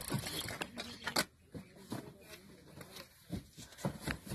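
Cardboard boxes being handled and set down in a truck's cargo box: scattered knocks and thumps with scuffing and rustling, the rustling heaviest at the start.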